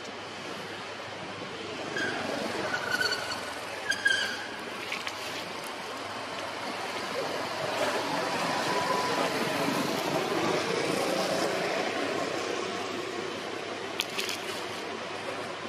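Steady rushing outdoor background noise, with a few short, high chirping calls about two to four seconds in and faint clicks near the end.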